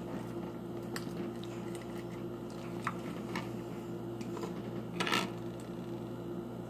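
Fingers picking cereal pieces out of a plastic tub: light scattered clicks and small rattles, with a louder rattle about five seconds in. A steady low hum runs underneath.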